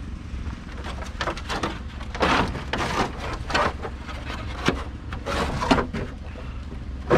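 Scrap pieces being handled and checked for metal type, plastic, tin or aluminum: a run of knocks, clicks and scrapes, with a low steady rumble underneath.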